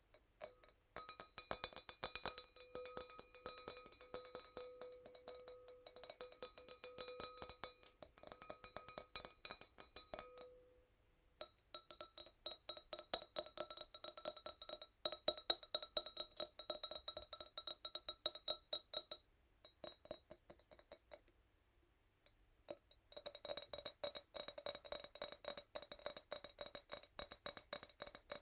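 Fingernails tapping fast and gently on a tiny wine glass, each tap ringing bright. The tapping comes in three long runs broken by two short pauses, and the ringing pitch shifts from one run to the next.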